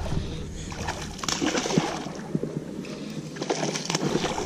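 A hooked bass splashing and thrashing at the water's surface as it is reeled in to the boat, with scattered small clicks and knocks.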